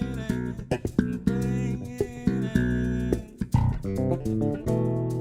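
Bass guitar playing a melody of quick plucked notes, with sharp percussive clicks among them, settling on a long held note near the end.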